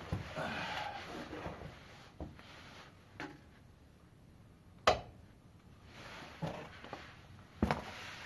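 Scattered knocks and clunks with some scraping and rubbing as a Subaru Impreza transmission is worked into place against the engine. The sharpest knock comes about five seconds in, and another comes near the end.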